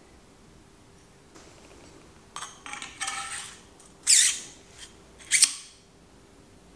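Seatpost shim being slid by hand onto a Promax seatpost: a stretch of scraping, then two loud, short scraping squeaks about a second apart.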